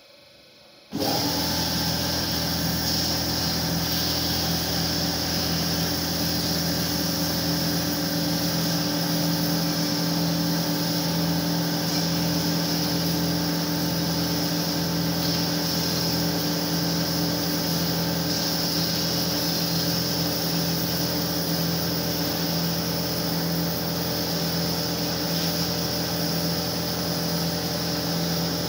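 Bomar Transverse 610.440 DGH metal-cutting band saw running steadily, a motor sound with a steady hum that starts suddenly about a second in.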